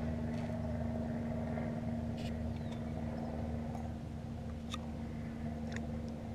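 A steady low motor hum with a constant tone, with a few faint clicks over it.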